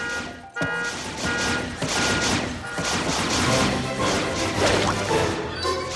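Cartoon crash and smash sound effects over background music. A sharp impact comes about half a second in, then a busy run of clattering, crashing sound that eases off near the end.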